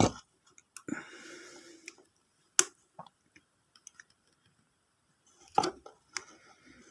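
Scattered sharp clicks, snips and rustling from hand work on motorcycle wiring: wires being cut and fitted into a plastic charging connector. The sharpest click comes about two and a half seconds in, and there is a small cluster of clicks near the end.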